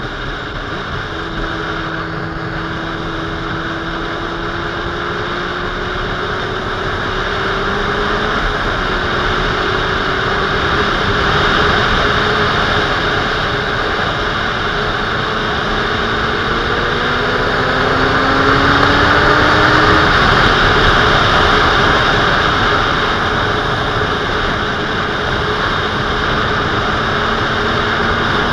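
Sport motorcycle engine running on the road under heavy wind rush, its note rising slowly twice as it picks up speed.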